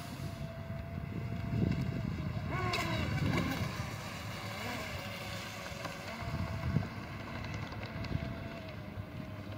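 Pro Boat Shockwave RC speedboat's electric motor whining at speed across the water, run on 6S through an upgraded 150A ESC. The whine mostly holds a steady pitch, with a quick rise and fall about three seconds in. Wind noise on the microphone sits underneath.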